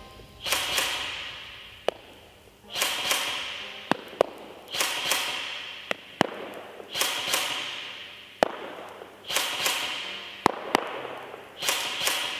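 Apex Fast Attack 802 airsoft electric gun (AEG) firing single shots, six in all, about one every two seconds, each echoing in a large empty hall. Each shot is followed about a second and a half later by a sharp tap of the BB striking the target 50 metres away.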